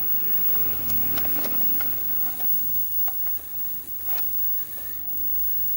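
Light clicks and taps of multimeter probes being set on the pins around a CRT TV's vertical IC, scattered about every half second, over a steady low electrical hum.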